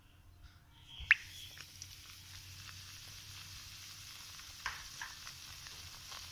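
Hot ghee in a kadhai sizzling steadily as a bowl of wheat flour is tipped in. A sharp click about a second in, as the sizzle starts, and a softer knock near the end.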